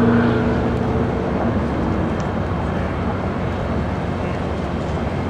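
Union Pacific excursion train's passenger cars rolling along the track with a steady low rumble. A steady hum fades out in the first second or two.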